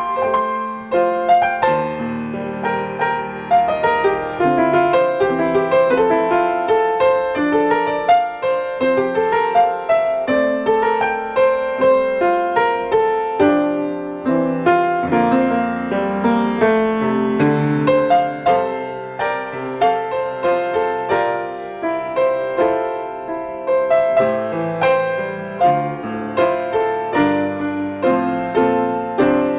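Solo piano music: a steady stream of struck notes in chords and a moving melody.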